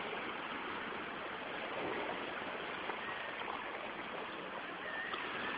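Shallow seawater swishing and sloshing around the legs of someone wading through it: a steady, even watery rush.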